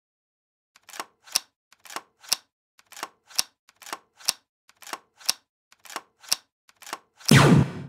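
Gunfire sound effects for toy blasters: sharp shots in quick pairs, about one pair a second, then a much louder, longer blast near the end.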